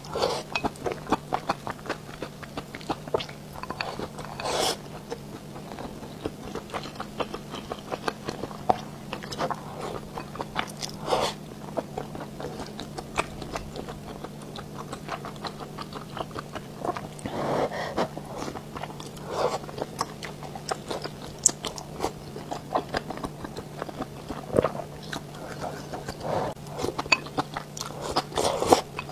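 Close-miked eating of mala xiang guo: biting and chewing the spicy stir-fried greens and other pieces, with wet mouth smacks and short sharp clicks throughout. A steady low hum runs underneath.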